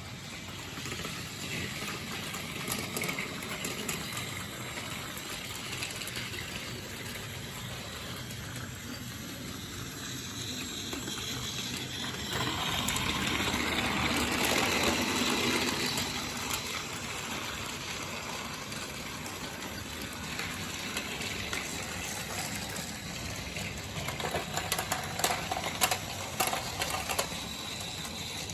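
Toy train engine running along its track pulling a second small toy, a steady mechanical whir that grows louder midway, with a run of sharp clicks near the end.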